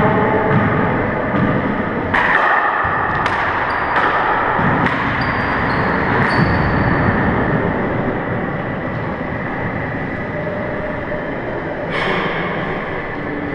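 Handball rally in an enclosed four-wall court: the rubber ball slaps off gloved hands, walls and floor in a run of sharp, echoing knocks over the first six seconds or so, with one more near the end. Short high squeaks, likely sneakers on the hardwood floor, come among the hits.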